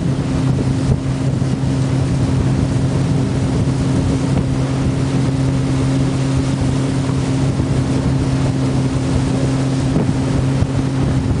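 Motor of a small wooden river boat running steadily at cruising speed, a constant low drone with an unchanging pitch, under a steady rush of water and wind.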